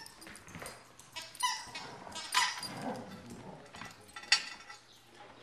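A dog giving a few short yips and whines while it plays, with rustling and a sharp click a little past four seconds in.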